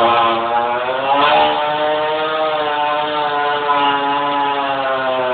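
Bicycle rear tyre spun against a concrete floor in a burnout, giving a loud, continuous droning whine whose pitch wavers slowly up and down.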